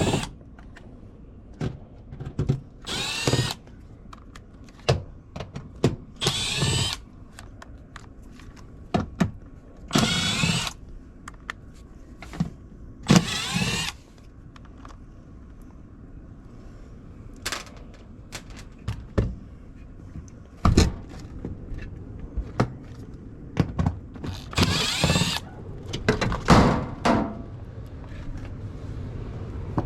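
Cordless drill-driver run in about six short bursts, each about a second long, with light clicks and knocks between them: screws being backed out to open up the unit.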